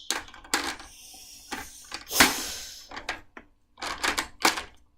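Irregular clacks and knocks of hard objects being handled and struck together, about ten in all. The loudest comes a little past two seconds in and rings briefly, and a quick cluster follows near the end.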